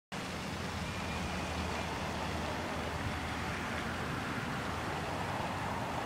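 Steady outdoor background noise: an even hiss over a low hum that is strongest in the first half, with no bird calls.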